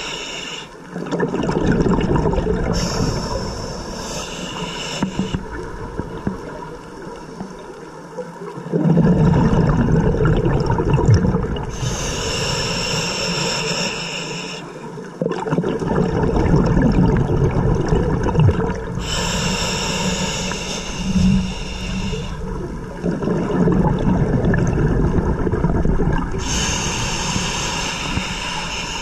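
Scuba diver breathing through a regulator underwater. Four inhalations hiss for about three seconds each, and between them long gurgling rumbles of exhaled bubbles.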